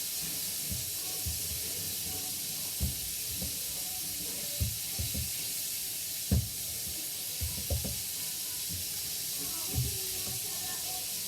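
Steady sizzling hiss of hot cooking oil, with a few soft knocks scattered through it.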